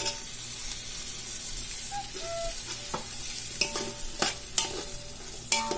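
Brinjal slices dropped into onions and herbs frying in an aluminium pot, then stirred with a metal spoon. A steady sizzle throughout, with a sharp knock as the slices land at the start and several spoon knocks against the pot in the second half, each leaving a brief metallic ring.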